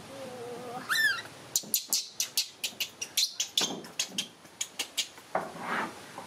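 Baby macaque monkey calling: a short squeal that rises and falls about a second in, then a quick run of short high-pitched squeaks, about four a second.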